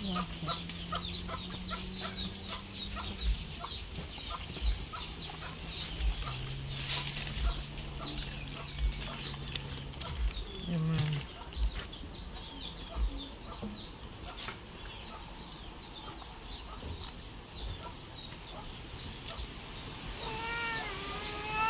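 Chickens clucking, with a run of quick high chirps in the first few seconds over a steady low hum. Near the end a high, wavering wail starts.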